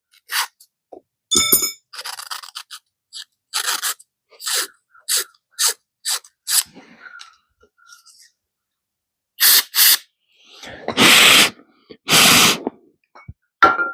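Strip of fine sandpaper being drawn back and forth through a motorcycle fuel level sending unit to scrape corrosion off its contacts. It makes a series of short scraping strokes, with two longer, louder strokes near the end.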